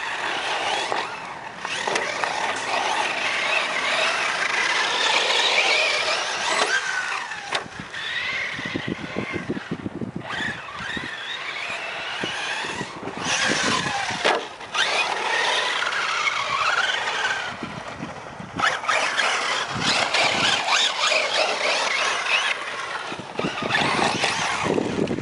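Electric RC truck at speed: the motor and drivetrain whine, sliding up and down in pitch as the throttle is worked, over the hiss of tyres churning dirt and gravel.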